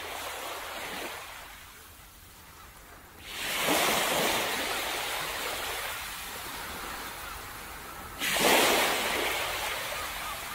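Ocean waves washing onto a beach, with two louder rushes of breaking surf, one about three seconds in and one about eight seconds in, each dying away slowly.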